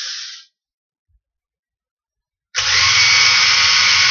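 Electric drill running: a burst that stops about half a second in, then after a gap of about two seconds it starts again abruptly and runs steadily at an even whine.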